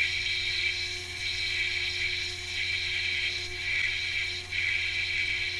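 CNC lathe running while a parting tool cuts off a brass button: a steady high whine over a low hum, wavering and dipping briefly a few times.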